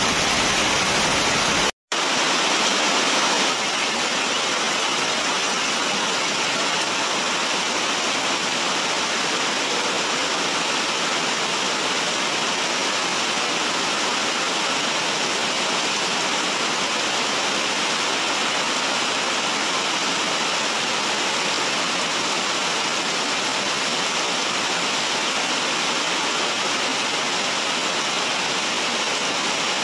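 Heavy rain falling as a steady, even hiss. It drops out for an instant about two seconds in.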